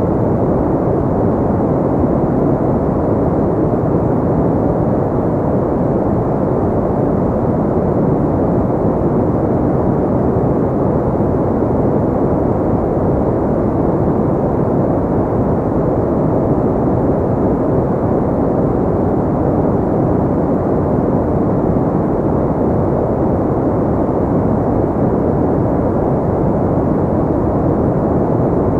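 Steady, unchanging sleep-aid noise, white noise filtered deep and muffled so it sounds like a low rushing rumble, with no breaks or events.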